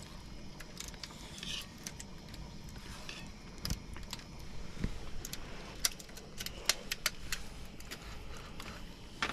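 Light clicks and clinks of eating utensils against dishes as a meal begins, irregular and scattered, with a brisker cluster past the middle.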